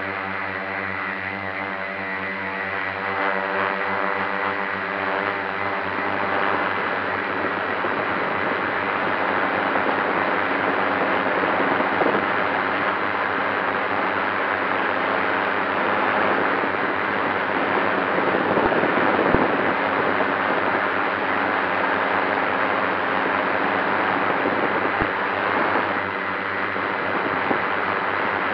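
FPV drone's motors and propellers running, a steady loud rushing noise mixed with wind. A steady humming chord dies away over the first six seconds.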